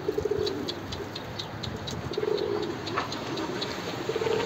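Pigeons cooing: three low, pulsing coo phrases, one at the start, one a little after two seconds and one near the end, with a run of light, quick clicks in between.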